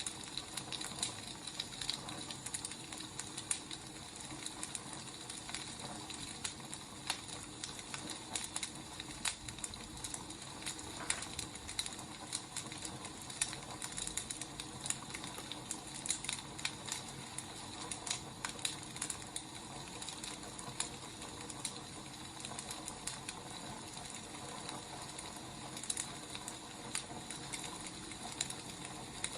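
Burning firewood crackling: a steady soft hiss with irregular small pops and snaps.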